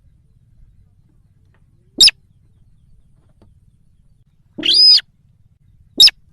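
Recorded calls of the sintar bird, as used to lure it. There is a short, sharp, shrill call about two seconds in and another near the end, with a longer, harsher call a little before the second one.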